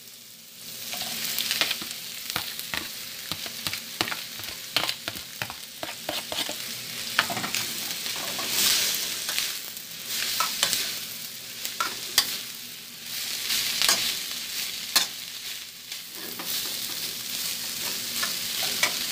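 Shredded cooked chicken breast frying in hot oil and onion in a nonstick pan, sizzling, while a silicone spoon stirs it with frequent short scrapes and knocks against the pan. The sizzle picks up about a second in as the chicken goes into the pan.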